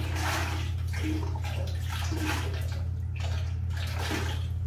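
Water being poured and splashing into an aquarium in uneven surges about once a second, over a steady low hum.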